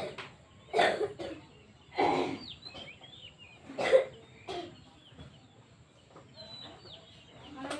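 Chickens squawking and clucking in several short, loud bursts over the first five seconds, with small birds chirping faintly in the background.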